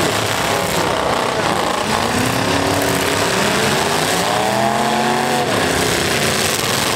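Several demolition derby trucks' engines revving hard under load, their pitch rising and falling, with tires spinning on dirt as the trucks push against one another.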